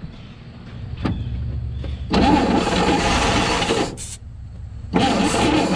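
1957 Chevy truck's straight-six engine being cranked over by the starter in two bursts, a pulsing mechanical churn with a short pause between them. The engine is being fed from a gas jug through an inline filter and is not yet catching, with its fuel pump not yet pulling fuel through.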